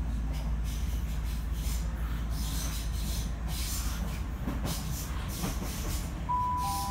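Southeastern Class 465 electric multiple unit running on the track: a steady low rumble with irregular rail and wheel noise. Near the end a two-note falling chime sounds.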